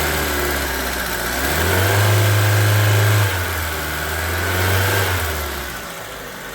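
Cold Hyundai Getz engine idling and revved twice with short throttle blips, each held briefly before falling back to idle. It has freshly replaced hydraulic lifters, and the mechanic judges the lifter knock gone.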